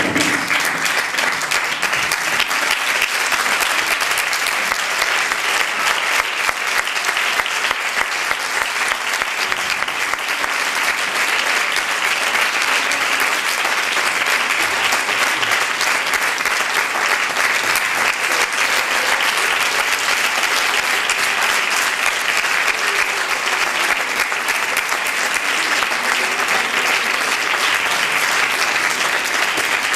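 Theatre audience applauding, a dense, steady round of clapping that keeps up without a break.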